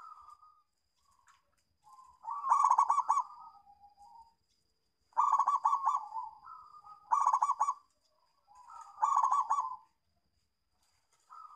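Local zebra dove (perkutut) cooing: a couple of soft notes, then four loud phrases of rapid, stuttering coos about two seconds apart.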